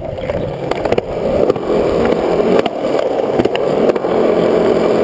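Skateboard wheels rolling on smooth concrete, a continuous rumble that grows louder over the first couple of seconds as the board picks up speed, with occasional sharp clicks.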